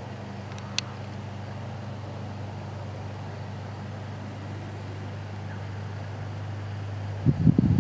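A steady low hum, like a distant engine or motor, with a short click about a second in and a few louder low thumps near the end.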